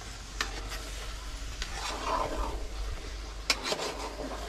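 A metal spoon stirring chicken pieces into thick cooked masala in an aluminium pot, scraping through the mixture with a few sharp knocks against the pot, the loudest about three and a half seconds in. A low sizzle from the pot sits under the stirring.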